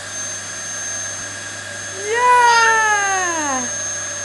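Vacuum cleaner running with a steady whine. About two seconds in, a single long cry rises briefly and then slides down in pitch over a second and a half.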